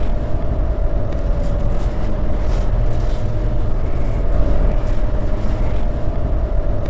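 Motorcycle riding at highway speed: heavy wind rumble on the microphone over a steady engine drone.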